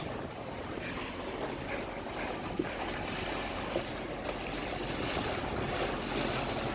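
Boat engine running steadily under way, with water rushing along the hull and wind buffeting the microphone.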